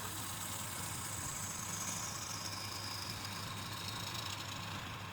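A motor running steadily: a low, even hum under a hiss, with a faint high whine that falls slowly in pitch early on.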